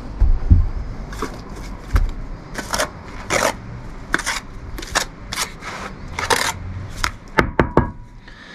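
Bricklaying work on Thermalite aerated concrete blocks: a trowel scraping and tapping against mortar and block in an irregular series of short strokes, with a couple of dull thumps in the first two seconds.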